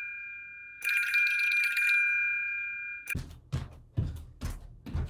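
A bell-style telephone ringtone trilling in two bursts about a second apart, cut off abruptly about three seconds in. A music beat with regular low thumps, about two a second, starts at once.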